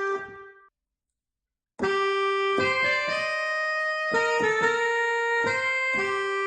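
Roland E-X20 arranger keyboard playing an instrument tone. A held phrase fades out, there is about a second of silence, then a melody of long sustained notes starts about two seconds in.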